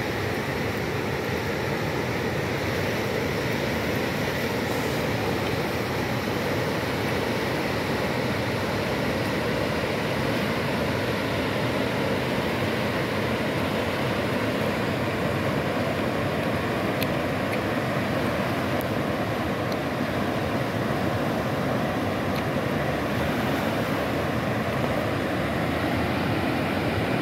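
Floodwater of the Ewaso Nyiro River running high and fast in a steady roar, the river in spate after heavy El Niño rains.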